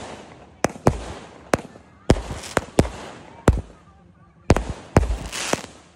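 A 49-shot firework cake firing: about a dozen sharp bangs at irregular intervals, roughly every half second, as shells launch and burst, each bang trailed by a short fading hiss.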